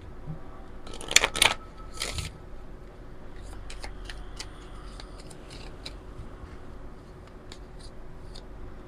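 A deck of oracle cards being shuffled by hand: two loud bursts of shuffling about one and two seconds in, then a run of light clicks and slides as the cards are split and fanned.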